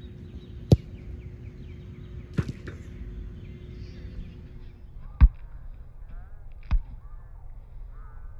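Soccer ball being kicked and striking the goal: four separate sharp thuds, the loudest a little past halfway, over a steady low outdoor background.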